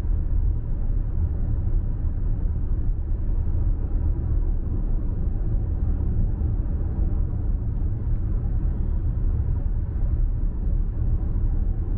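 Steady low rumble of a car driving at road speed, heard from inside the cabin: road and engine noise.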